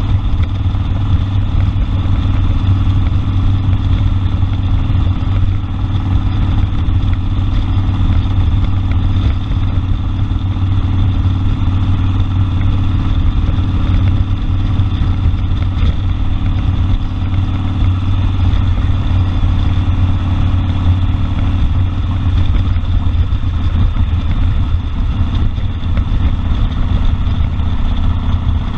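Harley-Davidson Sportster Custom 1200's air-cooled V-twin engine running steadily, heard from the rider's seat, with a deep, loud exhaust note.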